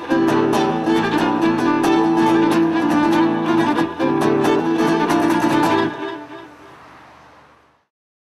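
Acoustic guitar and violin playing the closing instrumental bars of a song. They stop about six seconds in, and the last notes die away over the next two seconds.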